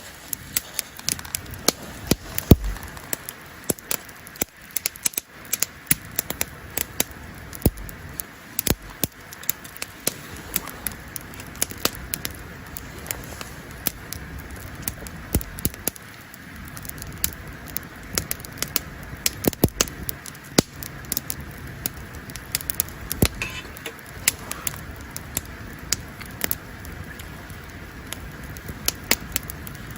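Campfire crackling: wood burning with frequent, irregular sharp pops over a steady low hiss.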